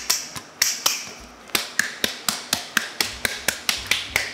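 Hand tapping the rim of a stainless steel drum sieve to sift semolina and 00 flour: sharp metallic taps, a few spaced ones at first, then a quick steady rhythm of about five a second.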